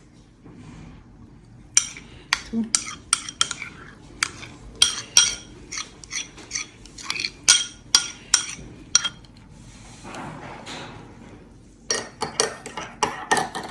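Metal utensil clinking against kitchen dishes: a run of sharp ringing clinks, several a second, a brief scraping rustle about ten seconds in, then another quick run of clinks near the end.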